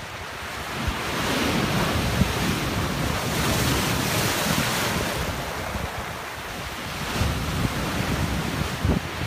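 Rough-sea waves crashing and surging through rock-armour boulders. The surf swells up about a second in, stays loud for a few seconds, eases off, then builds again with a second wave near the end, over the low rumble of wind buffeting the microphone.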